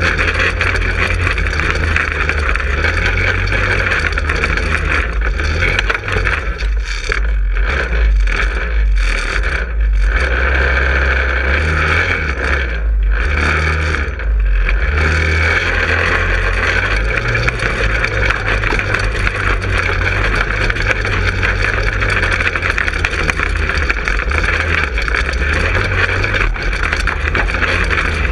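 Manco Helix 150 go-kart's engine running as the kart drives over a leaf-covered forest floor, with wind rumble on the on-board microphone. The sound thins out briefly several times between about 6 and 15 seconds in.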